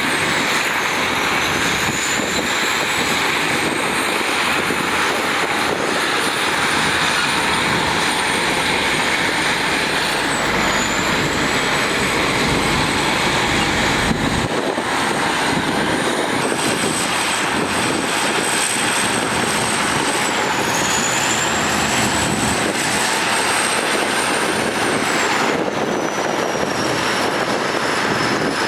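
Heavy diesel earthmoving machinery running hard, with a thin high whine that slowly climbs and then drops back several times.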